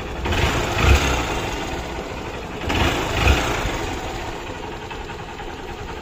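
Hero CBZ Xtreme's 150 cc single-cylinder four-stroke engine idling, with the throttle blipped twice, near the start and about three seconds in. The engine has a freshly rebuilt top end with a new piston, valves and rocker, and is running smoothly.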